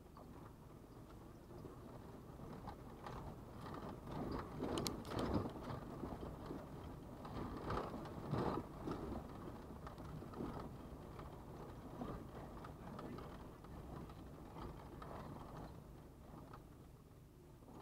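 Car driving slowly over a cobblestone street, heard from inside the cabin: a continuous rumble with rattles and knocks, loudest about five seconds in and again near eight and a half seconds.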